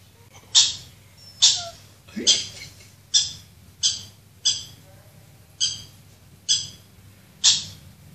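Recorded husky puppy cries played through a smartphone's small speaker: a string of short, high-pitched yelps, about one a second.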